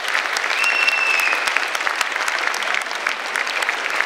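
Audience applauding steadily in a concert hall, with a single high whistle held for about a second near the start, falling slightly in pitch.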